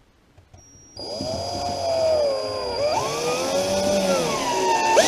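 Electric drill-driver driving a SPAX construction screw at an angle through a wall's sole plate into the floor. The motor starts about a second in, its whine sagging and rising as the screw bites, then jumps to a higher speed near the end.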